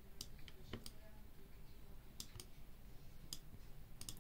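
Faint, irregular clicks at a computer, about nine short ones spread unevenly over a few seconds.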